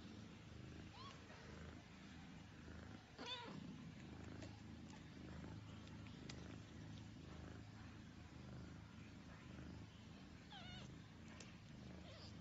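Cat purring steadily and faintly, with two short, high, wavering mews from newborn kittens, one about three seconds in and another near the end.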